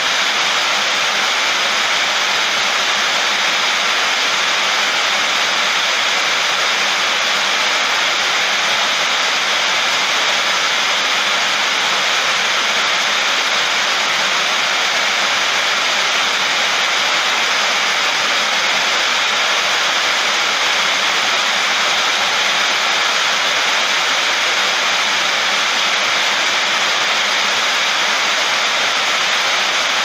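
Heavy rain falling on a sheet roof: a steady, unbroken downpour hiss with no thunder.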